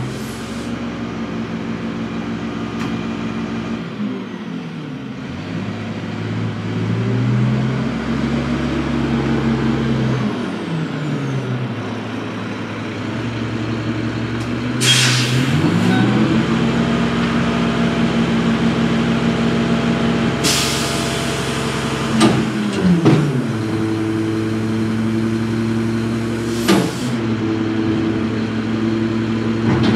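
Heavy truck's diesel engine running and speeding up and slowing down several times, with two sharp air-brake hisses about halfway through and a shorter one near the end.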